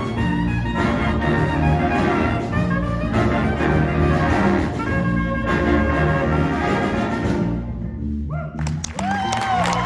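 School jazz band playing: saxophones and brass over a repeating bass line. About eight seconds in the horns break off and the audience starts cheering and whooping.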